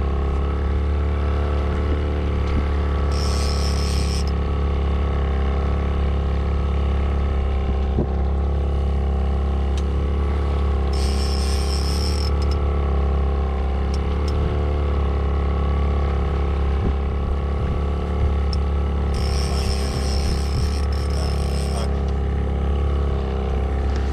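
A boat's motor running at a steady speed, a constant low drone heard from aboard, with three brief bursts of hiss.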